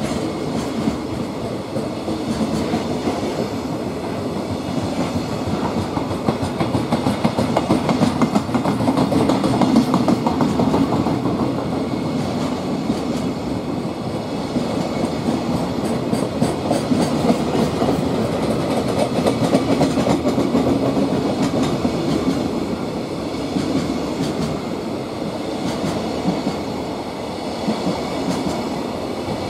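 JR Freight container flatcars rolling past close by: a steady rumble of wheels on rail with dense clicking, swelling a little twice.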